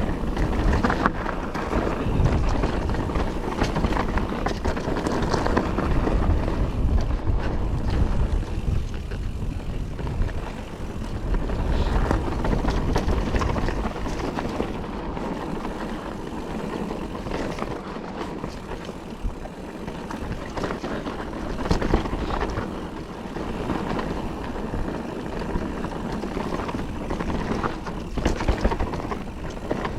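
Mountain bike ridden along a dry, loose dirt trail as heard from a bike- or rider-mounted action camera: steady wind on the microphone and tyre noise, with frequent knocks and rattles from the bike over rough ground.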